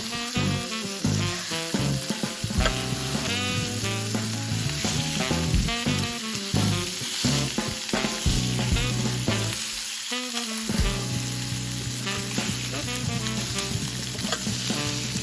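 Food frying, with a steady sizzle, under background music.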